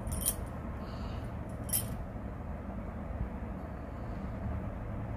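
A steady low hum with two short clicks, about a second and a half apart, near the start.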